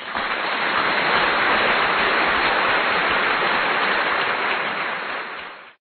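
Steady, even hissing noise from the outro card's sound track, with no tune or rhythm. It fades out just before the end.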